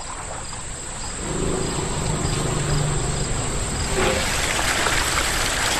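Insects chirring, a steady high-pitched whine with faint regular ticks, over a bed of outdoor noise that grows after about a second. A low hum comes in after about a second and fades near three seconds.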